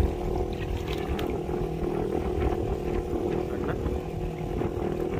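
Fishing boat's engine running steadily with an even hum over a low rumble, with a few faint clicks.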